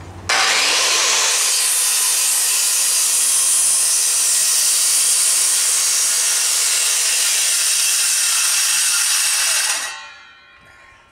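Corded circular saw spinning up and cutting across a wooden 4x4 post in one steady cut of about nine seconds, then switched off and winding down near the end.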